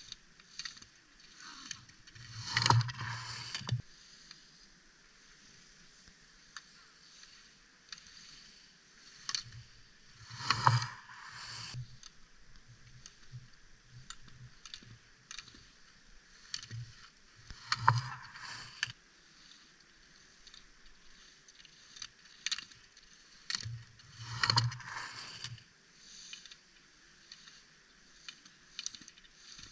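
Slalom ski edges scraping and hissing across hard-packed snow as racers carve turns through the gates, swelling into four loud swishes about seven seconds apart, with many short sharp knocks in between.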